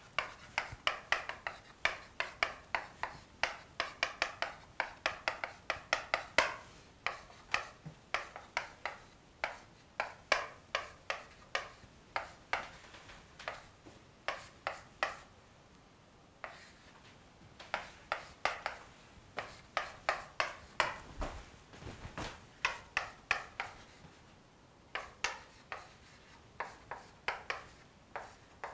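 Chalk writing on a chalkboard: runs of quick, sharp chalk taps and scrapes as letters are written, broken by brief pauses between strokes.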